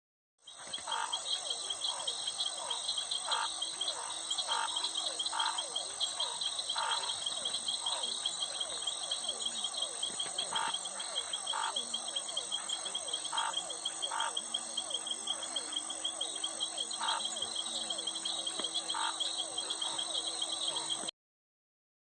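Frogs calling with short, irregularly spaced croaks over a dense, continuous high chorus of crickets and other insects. The chorus cuts off abruptly near the end.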